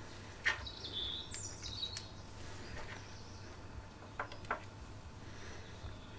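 A few light clicks and taps of small metal parts being handled: the lawn tractor's brake caliper and its studs. Birds chirp briefly in the background between the clicks.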